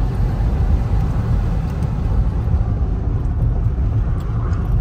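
Steady low rumble of a car being driven, road and engine noise with no change in pitch.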